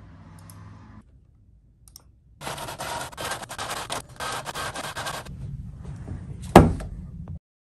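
Inkjet printer running a print job, a busy mechanical whir lasting about three seconds with a brief dip partway. A single sharp knock comes near the end.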